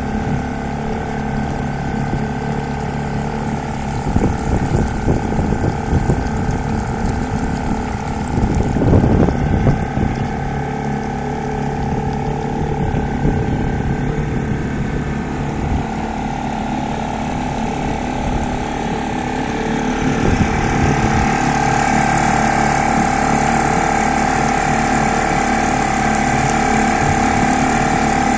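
Fisher 2.5 hp outboard motor running steadily at cruising speed during its break-in. Irregular thumps come between about four and ten seconds in, and the engine note grows louder and higher about twenty seconds in.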